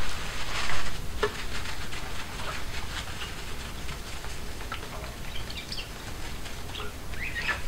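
A paper towel wiping a wet glass 3D-printer bed coated with glass cleaner: steady rubbing and scuffing with small clicks, and short high squeaks of paper on glass from the middle to the end.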